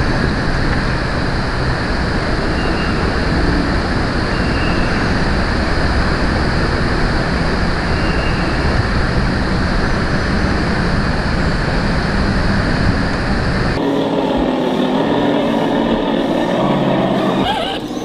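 A loud, steady rushing noise with a few faint, short high chirps over it. It cuts off abruptly about fourteen seconds in, and a quieter, different sound takes over.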